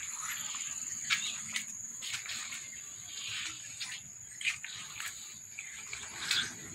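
Insects droning outdoors with a steady high-pitched buzz, with scattered short clicks and chirp-like sounds over it.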